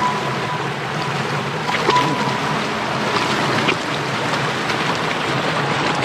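Small shallow stream flowing and splashing over stones in a steady rush of water.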